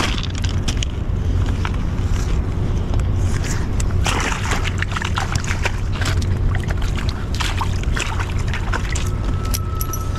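A steady low rumble with scattered taps and a rustle about four seconds in, from rain gear, line and a freshly caught shad being handled.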